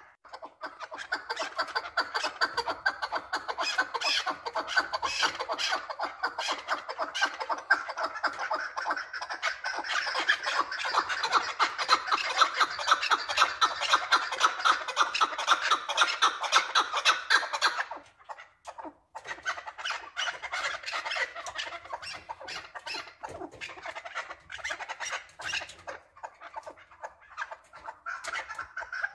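Chukar partridge calling: a long, rapid run of repeated call notes that breaks off about 18 seconds in, then starts up again more loosely.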